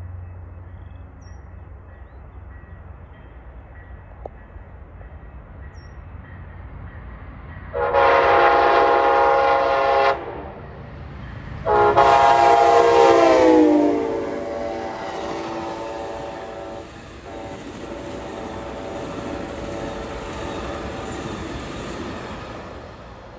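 Horn of an Amtrak Siemens ALC-42 Charger locomotive sounding two long blasts as a horn salute. The second blast drops in pitch as the locomotive passes. Then the double-deck Superliner passenger cars run past with steady wheel and rail noise.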